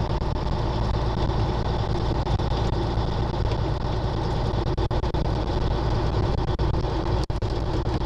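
The 550 bhp diesel engine of a Peterbilt 379 truck running steadily as the truck is driven, heard from inside the cab.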